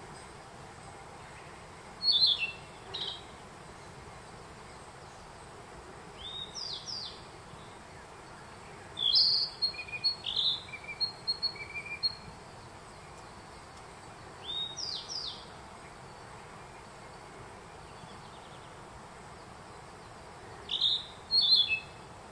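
A narcissus flycatcher and a grey bunting singing in turn, in five short phrases of clear, whistled notes with pauses of a few seconds between them. The bunting's song is a 'fii, chii, chii', and the longest phrase, about nine seconds in, is a run of many quick notes. A steady hiss lies underneath.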